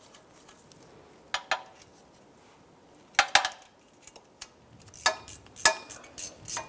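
Metal clinking as a bolt and hand tools knock against the steel exhaust hanger bracket while the bolt is fitted by hand: two clinks about a second and a half in, a short cluster around three seconds, then a quicker run of clinks and rattles near the end.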